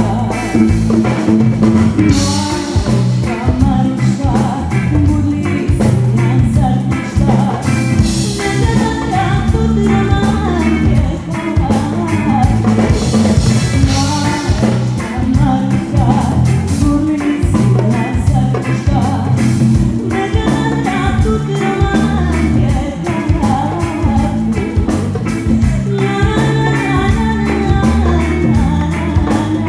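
A female singer performing a song live through a microphone, backed by an electric bass guitar and a drum kit keeping a steady beat.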